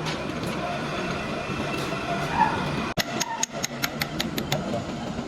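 Steady workshop background noise, then after a sudden break about three seconds in, a quick run of sharp taps, about six a second for a second and a half.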